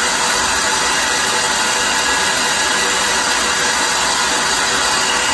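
Citizen M20 CNC Swiss-type lathe running: a loud, steady, even rushing noise with no pauses.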